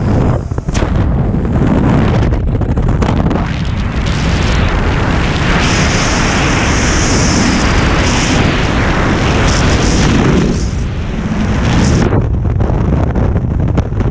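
Freefall wind buffeting the action camera's microphone: a loud, steady rush with deep rumble that turns hissier for several seconds in the middle.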